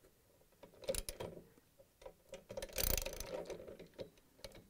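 Ratchet socket wrench clicking, with metal-on-metal clinks, as a 19 mm socket works the centre bolt of a washer's direct-drive rotor; a denser run of clicks comes about three seconds in.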